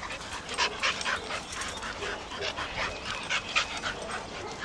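Three dogs roughhousing: panting, snuffling and scuffling in quick, irregular bursts.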